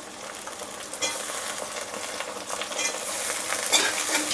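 Halved green turkey berries and shallots sizzling in hot sesame oil in an aluminium kadai, stirred with a steel ladle. The sizzle grows louder about a second in as the berries hit the oil.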